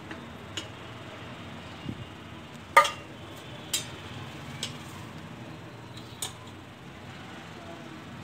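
Cooking oil heating in a nonstick kadai over a lit gas burner: a steady low hiss with a few scattered sharp clicks, the loudest about three seconds in.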